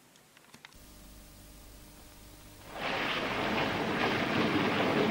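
Soundtrack noise of an old black-and-white TV commercial. A low steady hum comes in about a second in, then a loud, even hiss swells up just under three seconds in and holds.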